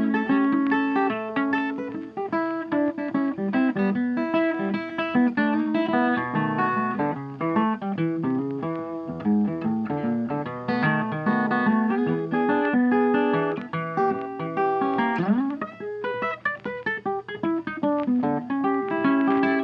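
Background blues music: plucked guitar playing a steady run of picked notes, with a quick upward slide about fifteen seconds in.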